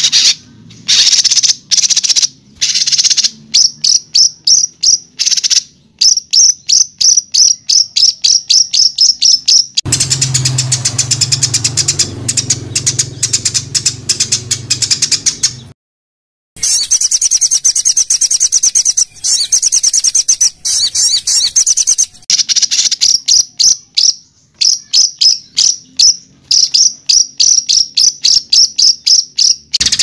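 Songbird song edited for masteran, the tutoring of caged songbirds: fast trains of short, sharp, high repeated notes, the harsh 'tembakan' (shot) phrases. About ten seconds in, a denser buzzing rattle over a low hum takes over for several seconds. It breaks off briefly near sixteen seconds, then the rapid note trains resume.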